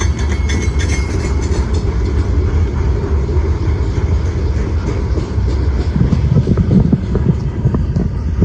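Freight train cars rolling past on the rails, a steady low noise of wheels on track.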